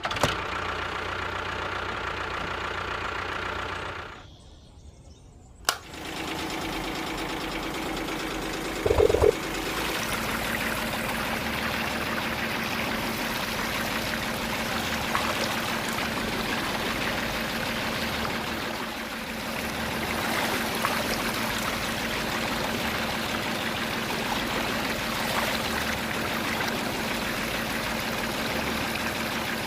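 Small motor running steadily. It drops out about four seconds in and starts again with a click near six seconds, with a brief louder blip about nine seconds in.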